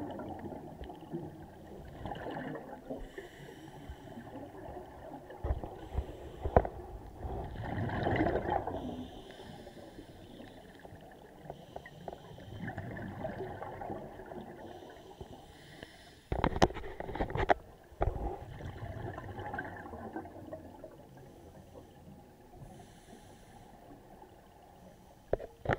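Muffled underwater noise picked up through a diving camera: rumbling bubbles and water that swell every few seconds, with hissy breathing-gas bursts in between. A few sharp knocks land about two-thirds of the way through.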